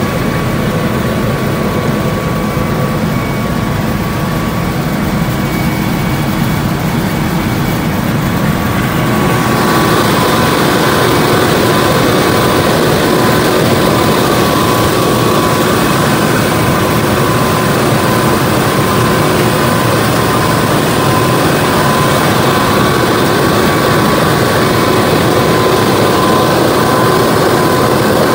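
John Deere 9970 cotton picker running while harvesting: a steady machine drone from the engine and picking units, with a thin steady whine on top. About ten seconds in it turns louder and sharper, with more hiss, and holds there.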